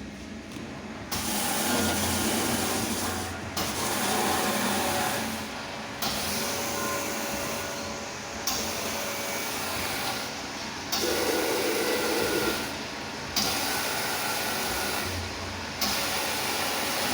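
Bottle washing machine spraying in repeated hissing bursts, each about two and a half seconds long, with brief pauses between them as it cycles.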